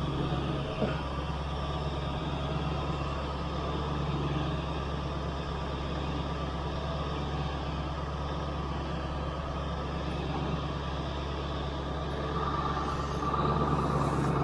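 Ford F-350 pickup engine idling steadily, warming up after a cold start in the snow. A single faint click sounds about a second in.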